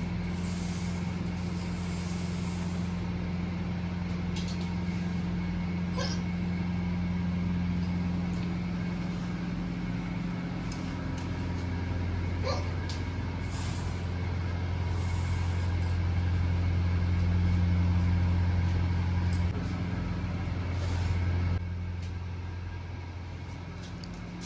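Handheld hair dryer running with a steady hum and rushing air. It gets louder toward the middle and turns quieter near the end.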